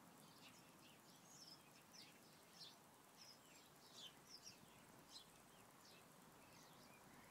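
Faint, scattered bird chirps, short high calls several times a second at times, over a quiet outdoor background hiss.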